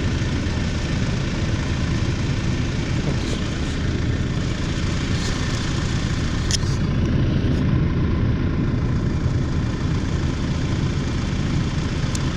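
Steyr tractor's diesel engine idling steadily, with a faint sharp tick about halfway through.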